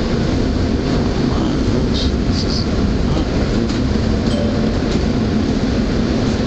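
SEPTA Route 10 subway-surface trolley, a Kawasaki light rail car, running on its rails with a steady rumble and hum, a few light clicks, and brief high-pitched wheel squeals about two seconds in.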